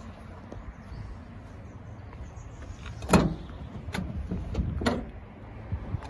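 Low rumble of wind and handling noise on a handheld microphone, with three sharp clicks or knocks about three, four and five seconds in, the first the loudest.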